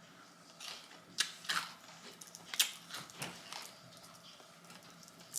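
Close-miked eating: wet mouth sounds of chewing, with a handful of sharp crunching clicks.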